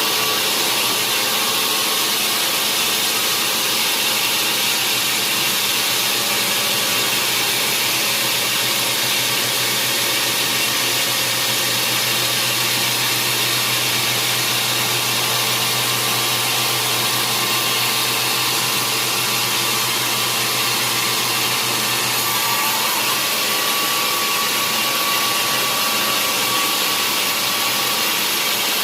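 Sawmill saw running with a steady, loud mechanical noise; a low hum grows stronger for about ten seconds in the middle.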